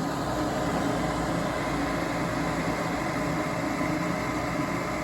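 Amana 90% gas furnace running, its draft inducer and fans giving a steady mechanical hum and whoosh.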